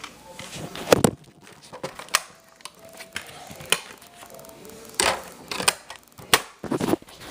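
Sharp plastic clicks and clatter of a DVD case being handled and opened, irregular, with several loud snaps.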